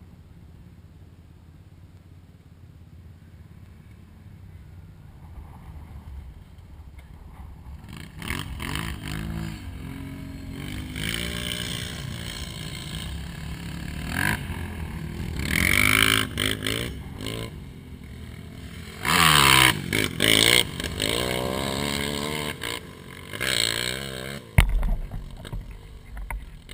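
ATV engines revving, their pitch climbing and falling again and again, faint at first and loudest about two-thirds of the way through.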